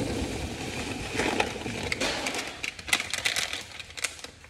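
Packaging and parts being handled: a run of irregular crinkles, rustles and light clicks.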